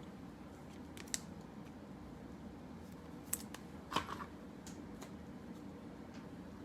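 Faint handling sounds of baseball trading cards being shuffled and set down, with a few light clicks and taps: one about a second in, then two more around three to four seconds in.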